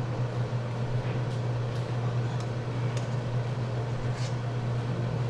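Steady low fan hum, with a few faint clinks of a spoon against a steel soup pot as it is stirred.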